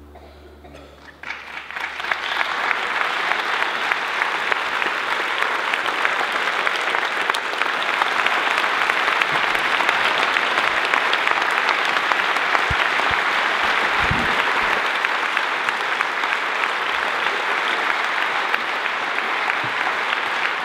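A didgeridoo drone dies away, then a large audience breaks into steady applause about a second in, which builds quickly and carries on evenly.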